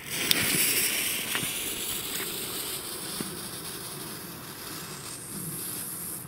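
Small Nico Irrlicht ground fountain firework hissing as it burns, throwing sparks. It catches right away and hisses loudest in the first second or so, then settles to a steady fizz with a few faint crackles.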